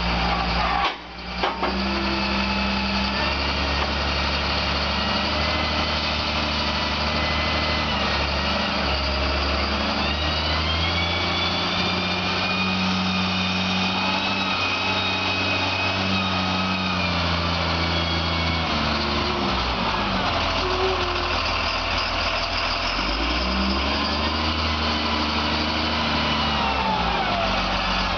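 Cat 938G wheel loader's six-cylinder diesel engine running, its speed rising and falling several times as the machine drives and turns, with a higher whine that follows the engine speed.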